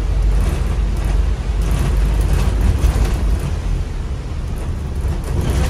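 City tour bus driving in traffic, heard from inside on the upper deck: a steady low rumble of engine and road noise.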